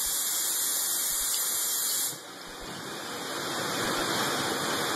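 Steady hissing noise with no clear source, dropping abruptly about two seconds in and then slowly building back up.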